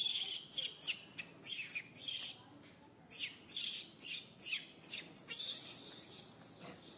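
Macaques screeching: a rapid run of short, shrill, falling squeals, about two a second, dying away near the end.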